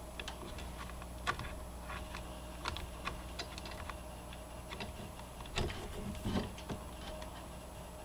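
A few light, scattered clicks and small handling taps over a faint steady hum.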